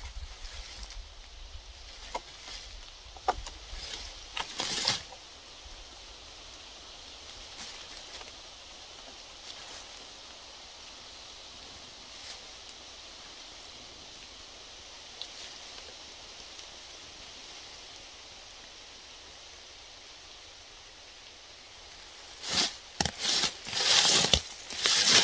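Dry leaves and brush rustling and crackling as a dead porcupine is handled and pulled up out of the undergrowth. There are a few short rustles at the start, a long quiet stretch of faint steady hiss, then loud, dense rustling from a few seconds before the end.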